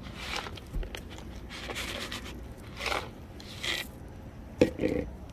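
Dry cat kibble shaken and poured from a plastic container onto pavement, in several short rattling bursts about a second apart. A sharp knock comes near the end.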